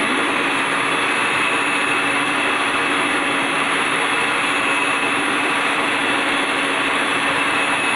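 Electric hand mixer on its stand running steadily at speed, its beaters whisking sponge cake batter: an even, unbroken motor hum and whirr.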